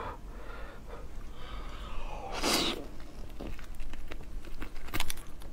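Slurping and sucking as raw langoustine meat is drawn out of its shell by mouth, with one loud slurp about halfway through and a few sharp clicks near the end.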